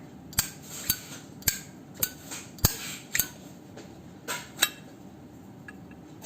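Brass Zippo lighter being handled: a series of sharp metallic clicks, about two a second, typical of the hinged lid snapping open and shut, then it goes still for the last second and a half.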